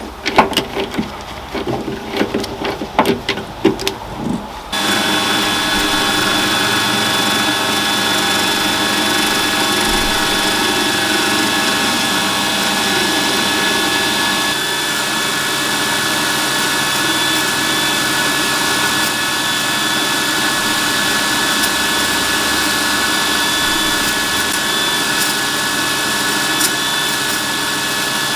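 A few seconds of irregular knocks and clatter, then a Warco WM180 mini lathe starts suddenly about five seconds in and runs steadily with a whining motor tone.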